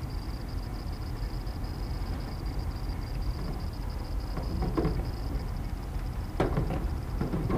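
A few short knocks and clatters, as of a camp cookset's pot and parts being handled and set down, about halfway through and again near the end, over a steady low rumble and a steady high hiss.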